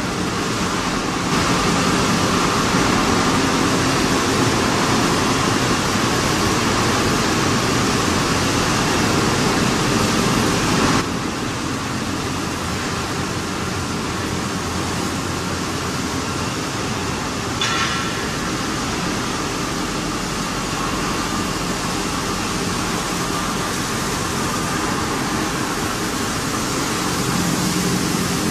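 Machinery of an organic fertilizer granulation line running: a steady, noisy mechanical din with a low hum, easing a little about eleven seconds in.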